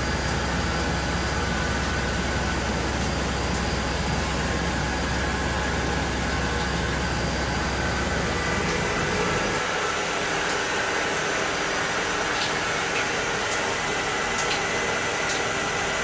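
Steady machine hum from a Brother TC-32A CNC tapping-milling center running, with several steady tones. A deep low drone stops about nine seconds in, leaving a lighter steady hum.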